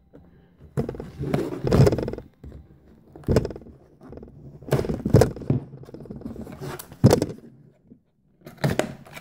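A pocket knife slitting the seal of a small cardboard box, with cardboard scraping and rubbing in about five short bursts as the box is cut and handled.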